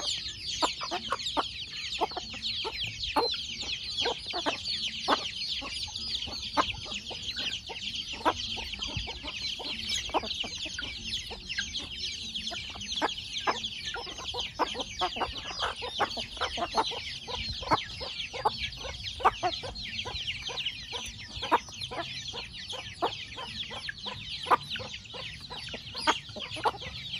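A flock of young chicks peeping without pause in many short, high, falling chirps, with short clucks from the hens scattered throughout.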